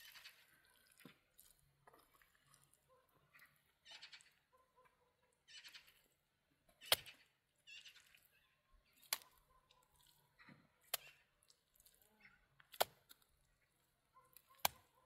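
Wet mud being scooped by hand from a wheelbarrow and packed onto a cinder-block wall: soft squelching scrapes, with five sharp smacks about two seconds apart in the second half.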